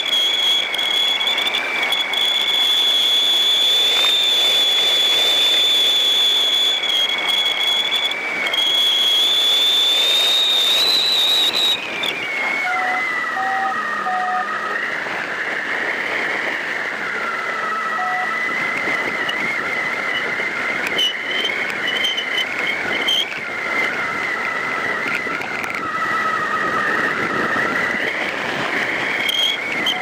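Wind rushing past a hang glider in flight, with steady whistling tones over the rush. About twelve seconds in the whistles slide down in pitch and the sound gets a little quieter, as with the glider slowing; a few short faint beeps follow.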